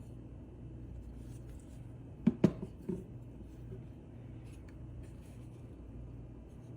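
Three short, sharp knocks of hard objects being handled, close together about two seconds in, over a steady low hum.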